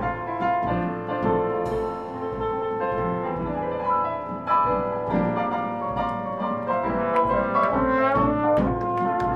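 Traditional New Orleans-style jazz band playing live: piano to the fore with brass horns, over a steady low beat about twice a second from the rhythm section.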